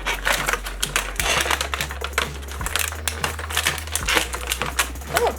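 Rapid, irregular clicking and rattling of plastic kit pieces and packaging being handled and taken out of a box.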